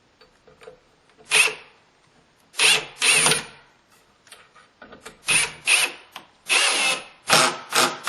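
Ridgid 18V brushless hammer drill driving a screw in a series of short trigger bursts, with its clutch set to about 30% torque ratcheting as the screw stops sinking. The bursts come closer together in the second half.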